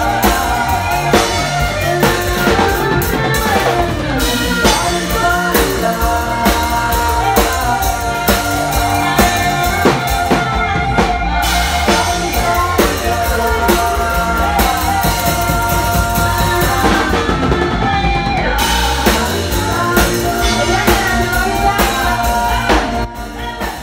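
Live band playing loudly: a drum kit keeps a steady beat under keyboard and other pitched instruments, with singing.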